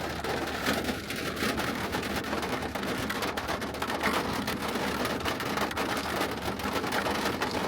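Rain hitting a car as it drives: dense quick taps of raindrops over a steady low hum of the moving car.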